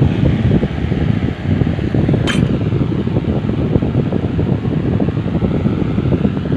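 Steady rumbling rush of a fan running close by, with one short metallic clink about two seconds in as a metal part is set down among spanners.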